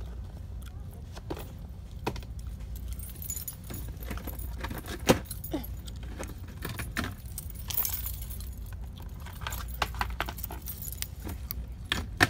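Light, irregular clinks and rattles, jangly like keys, as packaged party goods are handled and pulled from a store shelf, with one sharper click about five seconds in and a few more near the end. A steady low hum sits underneath.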